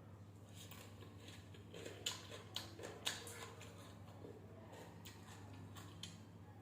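Faint eating sounds: quiet chewing with small mouth clicks and smacks, a few louder clicks around the middle.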